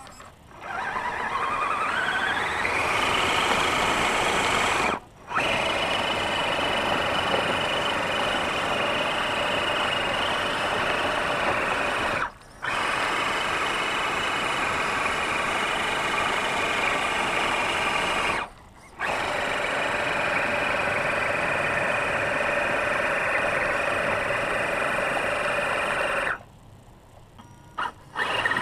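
Electric motor and gear drivetrain of a scale RC Land Rover Defender whining under throttle while it sits stuck in a mud pit with its wheels spinning. The whine rises in pitch over the first couple of seconds, then holds steady, drops out briefly three times as the throttle is let off, and stops near the end.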